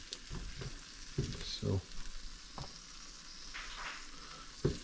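Oxtail pieces sizzling in hot oil as they brown in a pot: a steady frying hiss.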